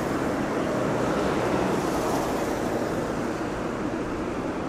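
Steady rushing outdoor background noise with a flickering low rumble and no distinct events.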